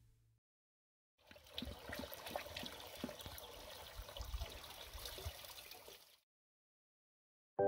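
A golden retriever lapping water from a stainless steel bowl: a faint, quick, irregular run of wet laps and splashes that starts about a second in and stops about six seconds in.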